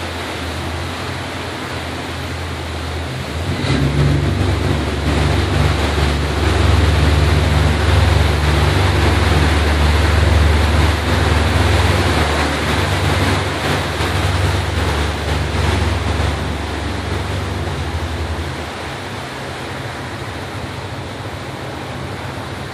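Boat engine running steadily with rushing water from the wake. The low engine rumble grows louder about four seconds in and falls back near the end, while the boat passes under a low bridge.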